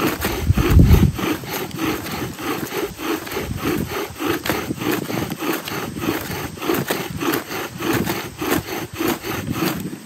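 Bow drill at work: a wooden spindle spun by a paracord bow grinds into a wooden hearth board in an even back-and-forth rhythm, about three strokes a second. This is the burn-in that seats the spindle in the board, far enough along to give smoke and dark dust. A low bump about a second in.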